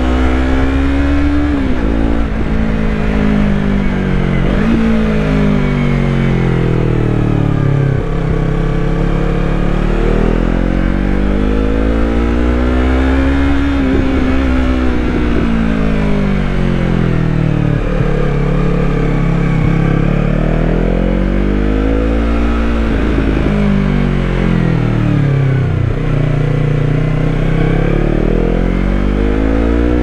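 The 321 cc parallel-twin engine of a Yamaha MT-03 riding along, its note climbing as it pulls and sinking as the throttle is rolled off. Several sudden drops in pitch, about 8, 18 and 26 seconds in, mark gear changes.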